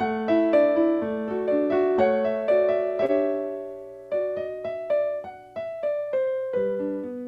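Solo piano playing a gentle prelude of flowing broken chords that slows and thins out in the middle, then resumes.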